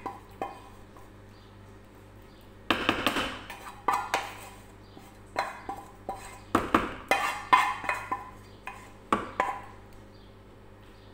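Wooden spatula knocking and scraping against a granite-coated cooking pot as rice is spread and pressed into it: a run of irregular clacks and scrapes from about three seconds in until near the end.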